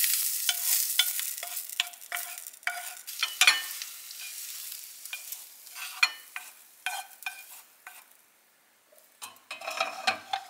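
Food sizzling in a hot nonstick frying pan, the sizzle fading over the first few seconds, while a wooden spoon scrapes and taps against the pan, pushing the cooked food out.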